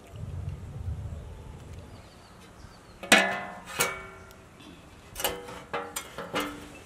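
Wide aluminium pan clanking against the stones of a wood-fire hearth as it is set down and shifted into place, each knock ringing briefly: two knocks about three seconds in, then a quick run of four or five near the end.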